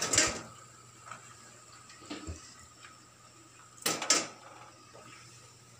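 Two sharp knocks about four seconds apart, each with a short clattery tail, and a couple of faint clinks between them.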